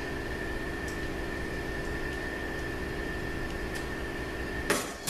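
Steady machinery hum and hiss of a workshop with a thin, high, steady whine, broken by a few faint clicks and one sharp metallic click near the end as the transmission's clutch piston and return spring are handled at the case.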